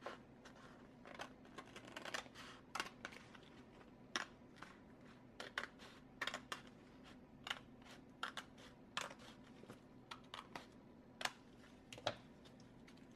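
Scissors cutting through a thin, not fully cured fiberglass shell: irregular crisp snips, about one or two a second, over a faint steady hum.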